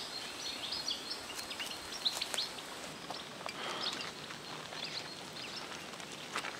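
Small birds chirping in short high calls over a steady outdoor hiss.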